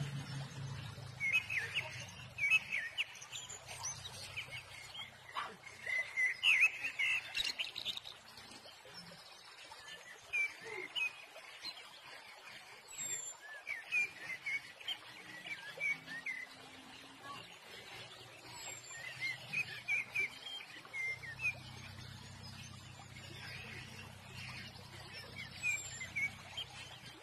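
Small birds chirping in the background, many short chirps scattered throughout, with a thin high whistle every few seconds. A low hum comes and goes underneath.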